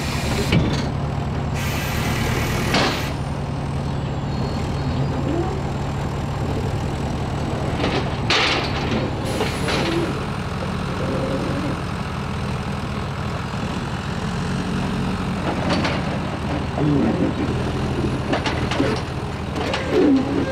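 Heavy diesel engine running steadily under the work of loading straw bales, with a few sharp knocks and a short hiss about eight seconds in.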